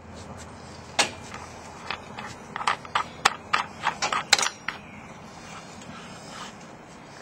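A dozen or so sharp, irregular clicks and crackles of a clear plastic 2-litre bottle being gripped and handled at its neck and cap, bunched from about a second in to about halfway through, over a steady low background hum.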